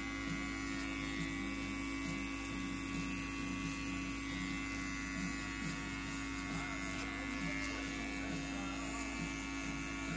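Electric hair clippers running with a steady, even hum.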